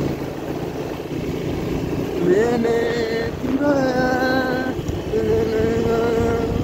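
Motorbike riding on a wet uphill road, with engine and wind rumble on the microphone. From about two seconds in, a run of held, steady pitched notes of about a second each sounds over it, and these are the loudest thing.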